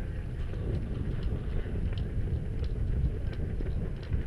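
Running footsteps crunching through dry leaf litter, with scattered sharp crackles and wind rumbling on a body-worn camera's microphone.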